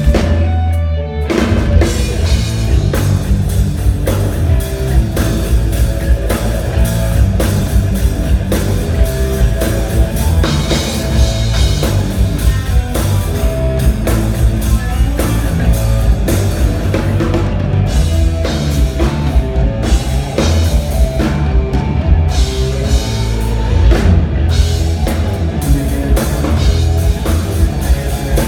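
Rock music: electric guitar played with a drum kit and a heavy bass line, loud and continuous, with a brief drop about a second in.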